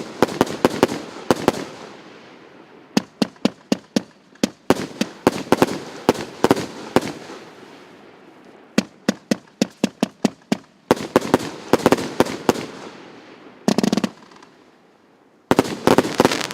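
PC865 'Wedding salute' fireworks battery firing volleys of quick shots, several a second, each run followed by crackling bursts. Short lulls fall between the volleys, and a dense, loud volley comes near the end.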